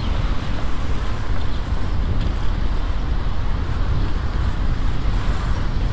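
Wind buffeting the microphone of a moving bicycle, a steady fluttering rumble, with road and traffic noise underneath.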